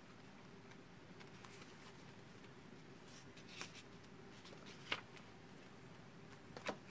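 Tarot cards being handled in a quiet room: light rustles and a few soft clicks, the sharpest a little before five seconds in, then a short clatter of card against card near the end as one is drawn from the propped-up spread.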